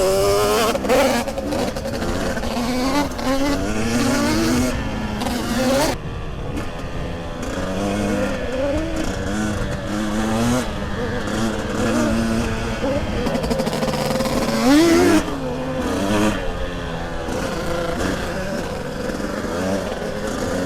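KTM 300 EXC two-stroke enduro motorcycle engine running under way, its pitch rising and falling repeatedly with throttle and gear changes, with a sharp rev about fifteen seconds in; the new bike is being run in.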